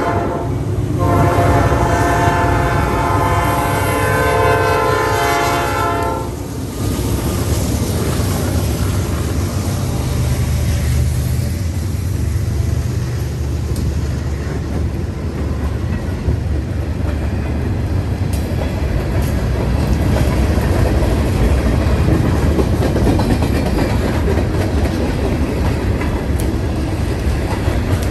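A Norfolk Southern freight locomotive's air horn sounds a chord of several tones. One blast ends just after the start, then a long blast runs from about a second in to about six seconds in. The freight train then rolls past with a steady rumble and the clickety-clack of its wheels over the rail joints.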